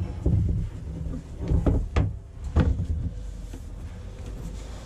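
A few dull knocks and bumps as a large plastic CAK water tank is held up and shifted against the underside of a van, most of them in the first three seconds, then quieter.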